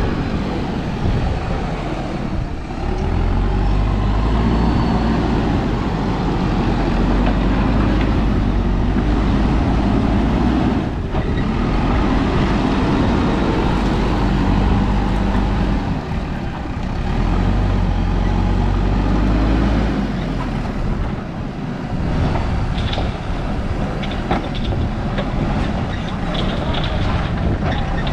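JCB 3DX backhoe loader's diesel engine running hard, its revs rising and falling as the machine works. A few clanks and rattles come near the end.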